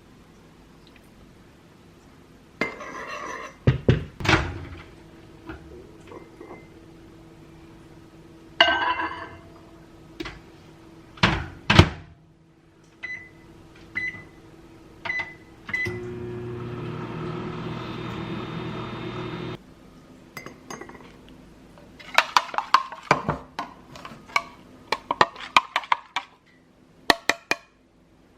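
Microwave oven in use: knocks and clinks of the door and dishes, then four short beeps about a second apart as its buttons are pressed. The oven then hums steadily for about four seconds and stops suddenly, followed by more clatter of dishes.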